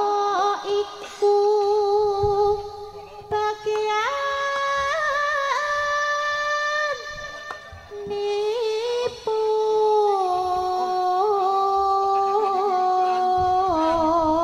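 A woman singing a Javanese song over the microphone and loudspeaker in long, drawn-out notes with small ornamental turns, the melody stepping up about four seconds in and down again about ten seconds in.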